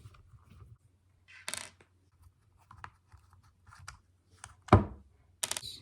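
Handling noise from taking apart a plastic impact-driver case with a screwdriver: scattered light clicks and taps, a short scrape about a second and a half in, and a sharp knock near the end.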